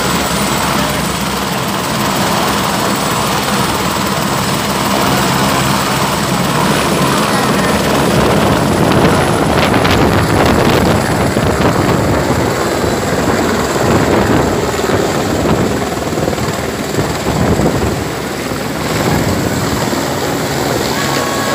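Light helicopter running with its main rotor turning, then lifting off and climbing away; the sound grows louder about eight seconds in as it takes off.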